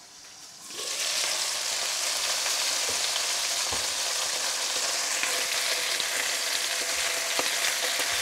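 Chicken pieces frying in oil in a pan. The sizzle turns loud and steady about a second in as the lid comes off, with a few light clicks as the pieces are turned with tongs.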